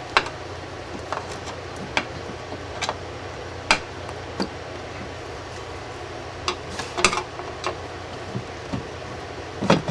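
Screwdriver prying at the cut seam of a vintage refrigeration compressor's steel shell: irregular metal clicks and knocks, roughly one every second, over a steady low hum.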